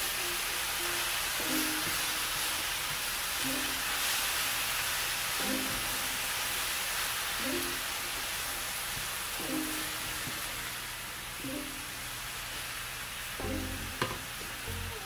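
Spinach with onions and peppers sizzling in a hot pan as it is stirred and wilts, the sizzle thinning near the end. Soft background music plays along with it.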